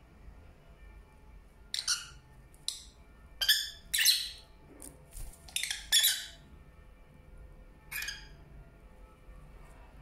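Pet lovebirds giving a string of sharp, high-pitched chirps and squawks, clustered between about two and six seconds in, with one more call near the end.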